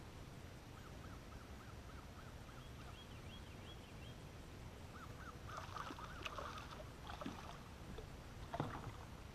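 Birds calling across calm water in quick series of short repeated notes, about four a second, one higher-pitched than the other. A few knocks on the boat deck break in during the second half, the loudest near the end.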